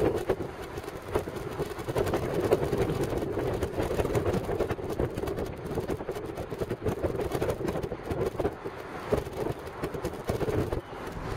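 Steady road and engine rumble of a car driving along a town street, heard from inside the cabin.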